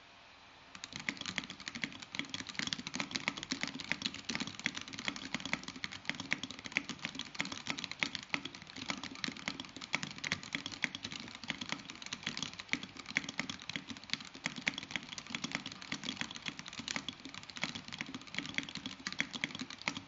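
Fast continuous typing on a Baldr 60 custom mechanical keyboard with a glass case, polycarbonate plate, Alpaca V2 linear switches and ePBT keycaps: a dense run of keystrokes that starts about a second in and stops at the very end. The sound is muted, somewhat like a plastic case.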